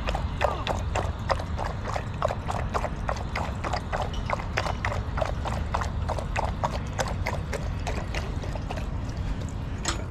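A dog lapping water from a stainless-steel bowl: quick wet laps at about four a second, stopping near the end.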